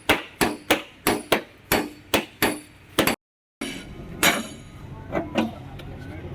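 A run of sharp, regular knocks, about three a second, like hammer blows. The sound drops out completely for half a second just past the middle, and afterwards the knocks come only now and then.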